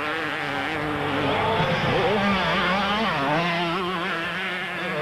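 Two-stroke 125cc and 250cc motocross bikes racing, their engines revving with the pitch repeatedly falling and climbing as the riders throttle off and on over a jump.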